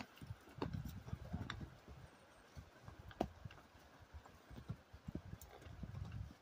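Hooves of a ridden horse walking along a trail: irregular low thuds and sharp clicks of each step.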